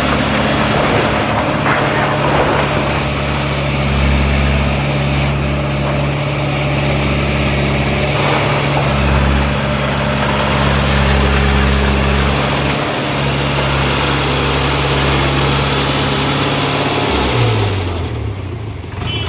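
A large engine running steadily with a low, even hum that swells a little at times, then slowing and dropping in pitch near the end.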